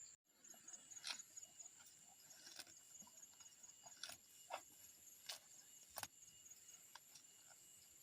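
Faint, steady high-pitched chirring of crickets or other insects, with scattered light clicks.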